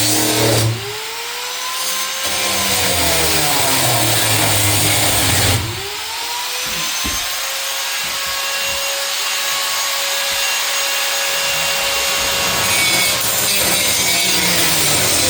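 Power cutting tool working through the steel of an old office desk. Its motor slows under load, then twice spins back up with a rising whine that levels off, and it bears down again near the end.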